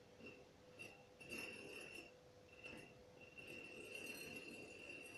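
Brass nut spinning freely down a long 8 mm lead screw with a 2 mm pitch, a thin high metallic whirring ring. It comes in short spurts at first, then runs steadily from about three seconds in.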